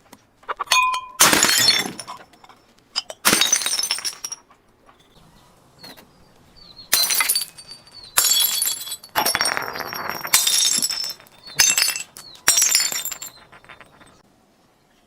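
Glass bottles smashing, about seven crashes over the span with short gaps between, each followed by bright ringing and tinkling of glass pieces.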